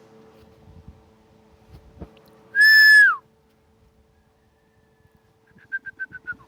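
A person whistling loudly to call dogs: one long, level whistle that drops in pitch at its end, then a quick run of about six short whistles near the end.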